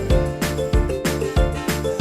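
Upbeat background music with a steady beat and a bright, tinkly melody.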